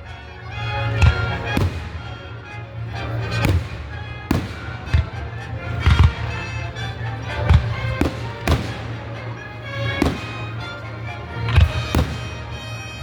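Fireworks going off, about ten sharp booms at uneven gaps of a second or two, over music playing.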